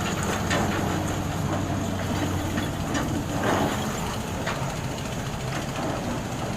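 Rotary bored-pile drilling rig running steadily under its diesel engine, with a few sharp clanks about half a second, three seconds and four and a half seconds in.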